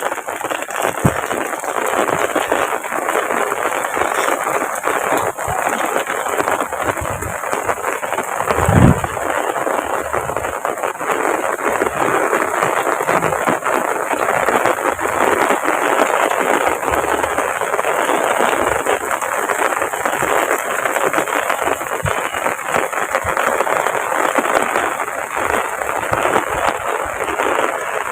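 Heavy rain pouring steadily, a dense patter of drops, with one low thump about nine seconds in.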